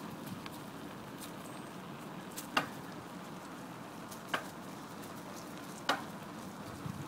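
Bicycle rolling along a park path: a steady crackling tyre-and-ride noise with three sharp clicks or knocks, about a second and a half apart.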